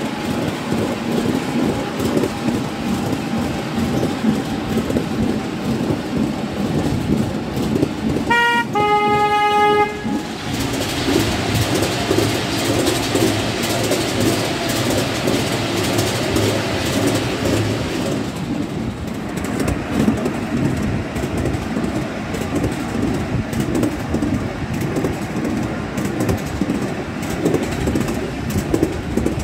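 Steady rumble and clatter of a miniature railway train running on its track, heard from a seat on board. About eight seconds in, the locomotive gives a short toot lasting just over a second. The running noise then turns hissier for several seconds while the train passes through a brick tunnel.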